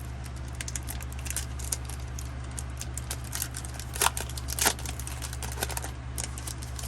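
Foil wrapper of a Pokémon booster pack crinkling and being torn open: a run of small crackles and clicks, with two louder snaps a little past the middle, over a steady low hum.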